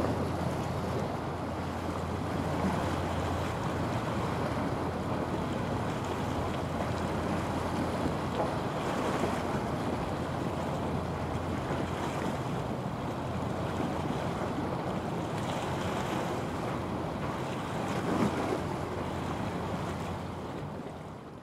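Wind buffeting the microphone over waves washing along the shore, with a low steady rumble underneath; the sound fades out at the end.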